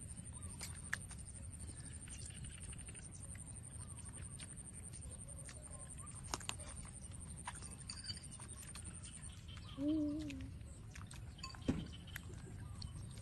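Puppies suckling at their mother's teats: scattered soft wet clicks and smacks over a low steady rumble, with one short rising-and-falling call about ten seconds in.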